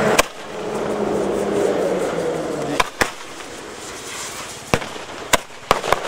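A string of about seven firecrackers going off in sharp bangs, two close together around the middle and four in quick succession near the end, set off in the dark to drive wild elephants away from farmland.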